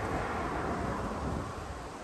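Outdoor city background noise: a steady rush of distant traffic that swells slightly and eases, with wind rumbling on the microphone.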